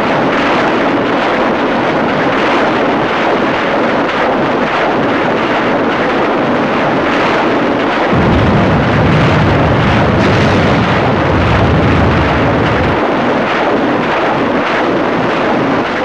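Truck-mounted rocket launchers firing salvos: a loud, unbroken rushing noise with rapid crackling throughout. A heavy low rumble joins it from about eight seconds in and stops around thirteen seconds.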